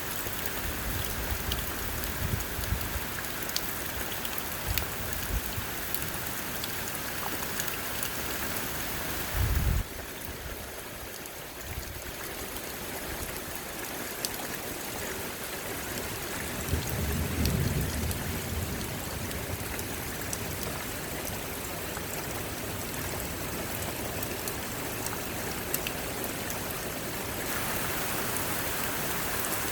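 Heavy rain pouring steadily, drops splashing and ticking on the roof. Low rumbles of thunder come a few times, a short strong one about a third of the way in and a longer one a little past the middle.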